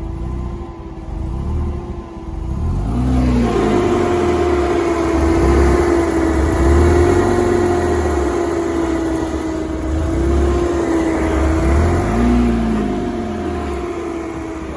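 Porsche 987 Boxster's flat-six engine running, with a low rumble under a steady, slightly wavering whine; it grows louder about three seconds in.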